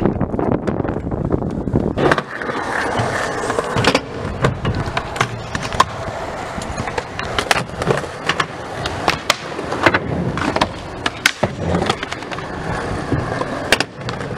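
Skateboards rolling on concrete, their wheels making a steady rumble, broken over and over by sharp clacks of boards popping, landing and knocking against the ramps and ledges.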